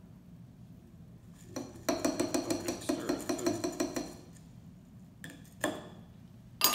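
Metal bar spoon stirring crushed ice in a cocktail glass: rapid ringing clinks, about nine a second for two seconds, followed by a few single knocks near the end.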